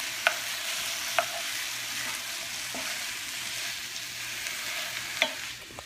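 Diced chicken and turkey sausage with onions and peppers sizzling steadily in a frying pan as they are stirred, with a few sharp knocks. The sizzle gets a little quieter near the end.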